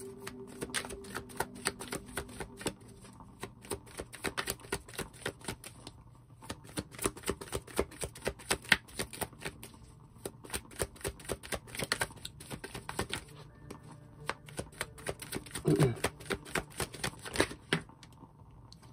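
A deck of tarot cards being shuffled by hand: a quick run of small clicks and riffles, with a couple of brief pauses.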